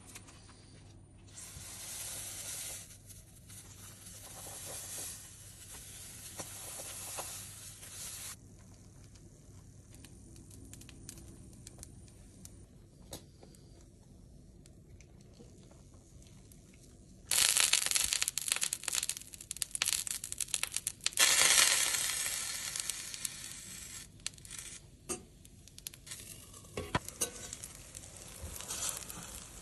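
Oil sizzling in a stainless steel frying pan as yeast pancakes (oladyi) fry. After a quieter stretch it turns loud and crackling for several seconds past the middle, then settles to a lighter sizzle.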